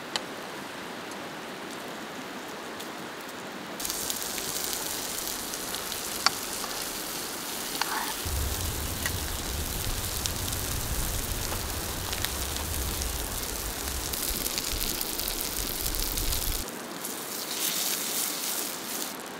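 Sausage slices frying in a pan over a small wood-burning camp stove, a steady sizzle that grows much louder about four seconds in. A couple of sharp clicks sound near the start and about six seconds in.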